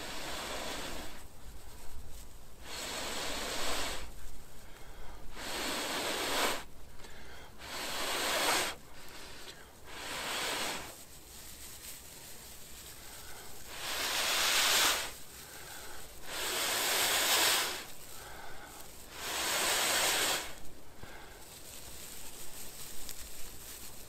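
A person blowing out hard about eight times, each breath lasting about a second, with pauses to draw breath between them.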